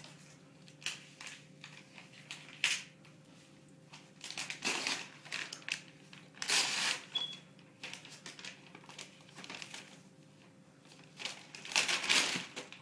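Wrapping paper crinkling and tearing as a present is unwrapped by hand, in irregular rustling bursts that grow louder around the middle and again near the end.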